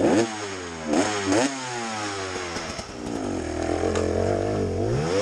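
Dirt bike engine revved in quick blips, then pulling steadily under throttle and climbing in pitch again near the end as the bike rides off along the trail.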